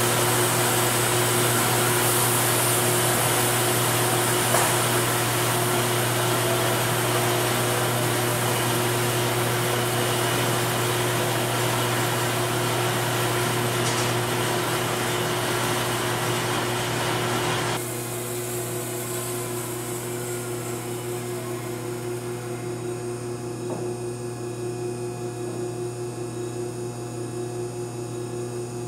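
Wood-Mizer LT50 band sawmill running: a steady low hum under a constant rush of machine noise. About eighteen seconds in, the higher noise stops suddenly, leaving a quieter steady hum with a few constant tones.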